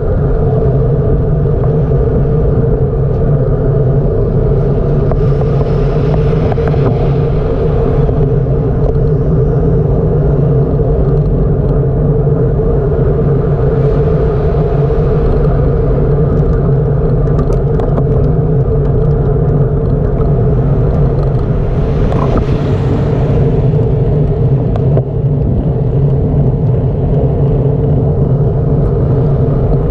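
Steady low rumble with a constant hum, the wind and road noise of a bicycle ride picked up by the camera microphone; a faint hiss swells and fades three times.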